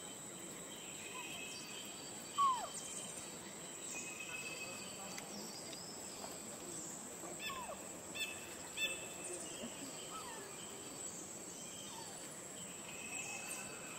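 Forest ambience: a steady high-pitched insect drone, with a few short falling calls, the loudest about two and a half seconds in and two fainter ones later, and a couple of sharp clicks near the middle.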